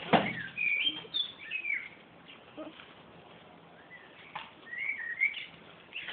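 A sharp knock right at the start, then a songbird sings two short warbling phrases of quick up-and-down whistles, a few seconds apart.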